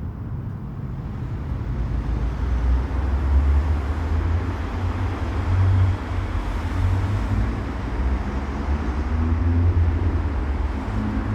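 A car engine runs with a low rumble in a multi-storey car park, getting louder over the first few seconds and then holding steady.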